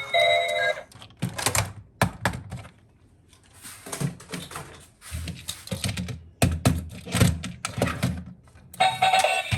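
Hard plastic toy parts clicking, snapping and knocking as they are handled, in an irregular run of sharp clicks and taps. A short electronic tune plays at the start and starts again near the end.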